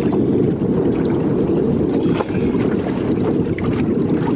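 Steady wind buffeting the microphone on a boat at sea, with a few faint splashes of choppy water.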